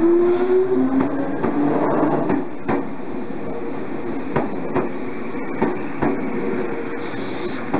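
Nankai 2000 series electric train rolling past: its motor whine rises in pitch during the first second, then the wheels clack over rail joints as the cars go by, with a short hiss near the end.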